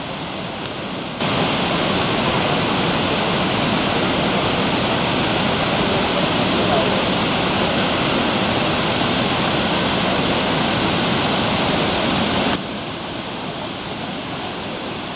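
Steady rush of Iguaçu Falls swollen by record floodwater. It gets louder about a second in and drops back near the end.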